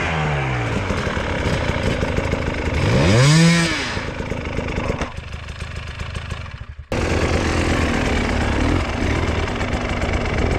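Two-stroke enduro dirt bike engines running over rough ground, with one rev that rises and falls about three seconds in. The engine sound thins out around five seconds in, comes back abruptly about two seconds later, and then runs steadily.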